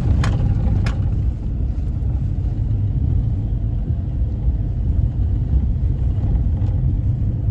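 Steady low rumble of a moving vehicle's engine and tyres on the road, heard from inside the vehicle, with two light clicks in the first second.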